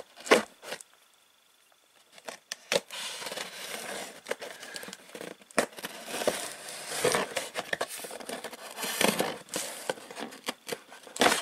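Scissors cutting open a cardboard box along the seam of its lid: scraping, crackling cardboard with sharp snips and clicks. There is a brief quiet stretch about a second in.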